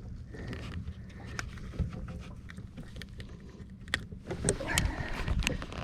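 Low steady rumble of wind and water around a small fishing boat, with scattered sharp clicks and knocks from gear being handled in the boat, more of them in the second half.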